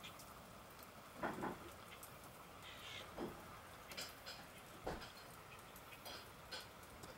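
Faint ticking patter of falling wet snow, with three soft thumps about two seconds apart.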